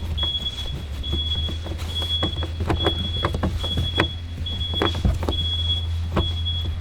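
A high electronic chime beeping steadily a little more than once a second, the open-door warning chime of a 2007 Honda Civic. Scattered clicks and knocks of hand work on the plastic door panel sound over it, with a steady low hum underneath.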